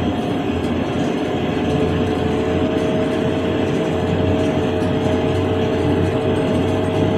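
JCB 3DX backhoe loader driving at speed: its diesel engine and drivetrain running steadily with a steady whine, getting a little louder about two seconds in.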